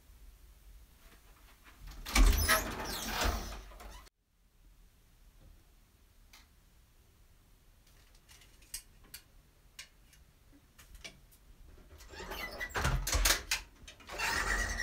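Wooden louvered closet doors rattling as they are pulled open and pushed shut, once about two seconds in and again from about twelve seconds in, with scattered light clicks of clothes hangers on the rail in between.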